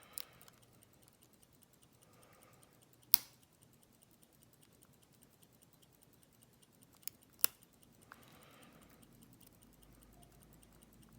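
Sparse sharp metallic clicks from picking a Master Lock 401 lockout padlock: pick and tension wrench working the pins in the keyway. About five clicks, the loudest about three seconds in and a close pair about seven seconds in.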